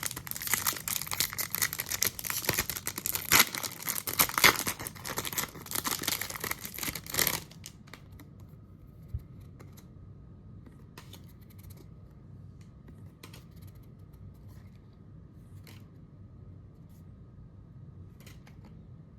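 A foil Pokemon booster pack torn open and its wrapper crinkled for about seven seconds. After that it goes much quieter, with only scattered faint ticks and rustles as the cards are handled.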